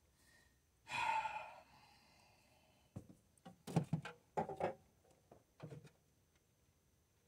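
A sigh about a second in, then a scatter of short knocks and clicks from hands and pliers working at the spark plug wires in the engine bay.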